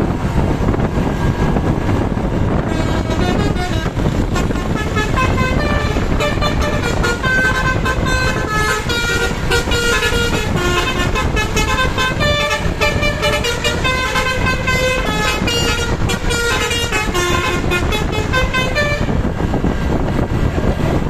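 Bus basuri telolet horn playing a quick melody of changing notes, starting a few seconds in and stopping a couple of seconds before the end, over a steady loud rumble.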